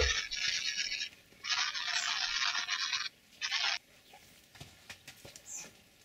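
Rustling, scraping noise of leaves in three stretches, the longest about a second and a half, then only a few faint clicks near the end.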